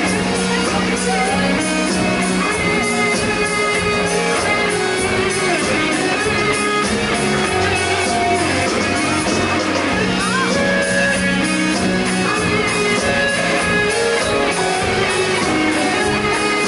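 Live rock band playing loudly through stage amplifiers: electric guitars, bass guitar and drum kit.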